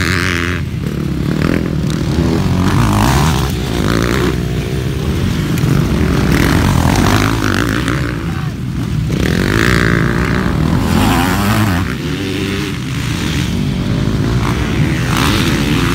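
Several motocross dirt bikes racing, their engines revving up and down in pitch as they accelerate around the track.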